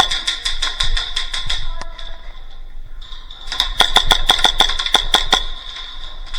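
Airsoft electric gun firing on full auto in two bursts: the first stops about a second and a half in, and the second runs for about two seconds in the middle. Each is a fast string of sharp clicks, roughly eight a second, over a steady high whine.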